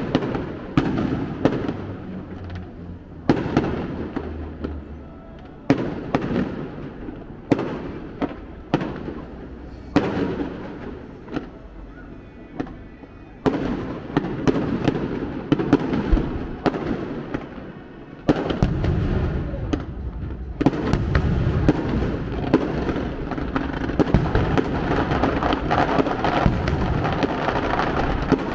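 Aerial firework shells bursting with sharp bangs every second or so, each trailing off. About two-thirds through, the bursts turn into a denser barrage of overlapping bangs and crackle that keeps going.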